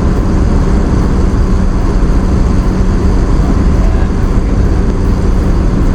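Car driving on a snow-covered road: a steady loud rumble of road and engine noise with a constant low hum.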